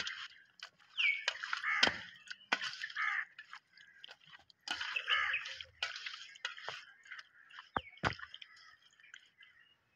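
Hands squishing and turning spice-marinated fish pieces in a steel bowl: wet squelching in irregular bursts with a few sharp clicks, thinning out near the end.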